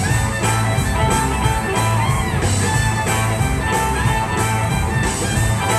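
Live blues band playing: fiddle and electric guitar over a drum kit, with a steady, pulsing low-end groove and regular cymbal hits.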